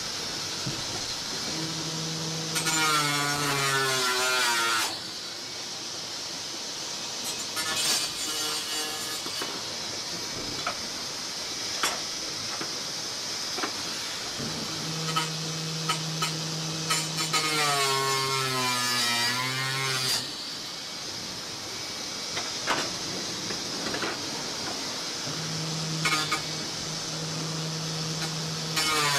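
Handheld power tool run three times for a few seconds each, its pitch sagging toward the end of each run as it works against the material, over the steady rush and occasional knocks of the racing yacht under way.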